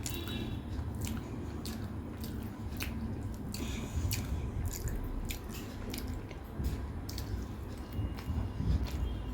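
Close-miked eating: wet, squishy chewing with frequent sharp mouth clicks and smacks, several a second.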